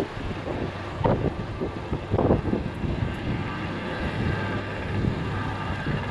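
Icelandic Coast Guard Super Puma helicopter in flight: a steady low rotor hum with a thin turbine whine above it, broken by a few rushes of wind on the microphone.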